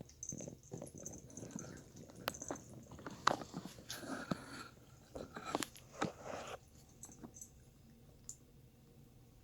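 A pet lapping and biting at a thin stream of running tap water: irregular wet clicks and splashing for about six seconds, then it stops.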